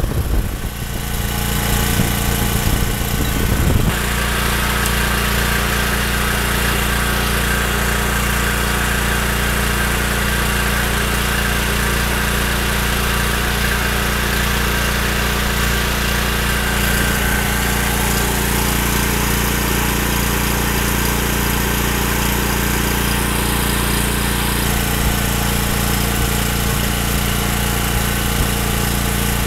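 Briggs & Stratton portable generator's single-cylinder overhead-valve engine running steadily with no load at its governed speed of around 3700 rpm, which is within spec. Irregular low rumbling thumps sound over it for the first four seconds.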